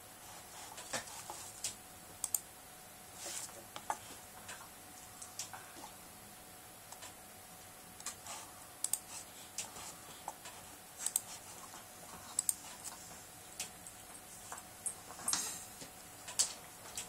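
Scattered small clicks and soft rustles at an irregular pace from a beagle and a Brittany pawing, nuzzling and shifting against each other on a cushioned couch.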